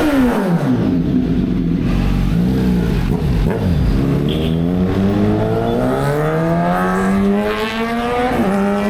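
Kawasaki Z900 inline-four engine revved through an SC Project S1 exhaust with resonator: a rev falling away at the start, a short blip, then a long climb in revs that drops sharply back to idle near the end.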